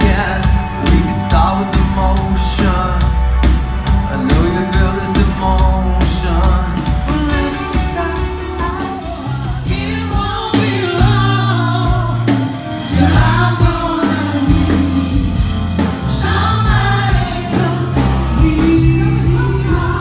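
Live concert music recorded from among the audience on a phone: a rock band with electric guitars, drums and lead vocals. About nine seconds in it changes to a different live song with singing over a stepping bass line.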